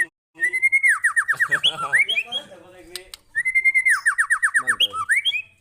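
White-rumped shama (murai batu) song, looped as a lure: a whistled phrase of a held note followed by a quick run of about six falling notes, sung twice with a short pause between.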